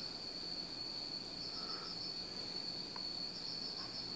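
Crickets chirping: a steady high trill with short pulsing bursts now and then, and a faint click about three seconds in.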